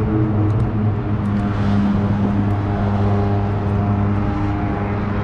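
An engine running steadily: a low hum made of several steady tones that step slightly in pitch a couple of times.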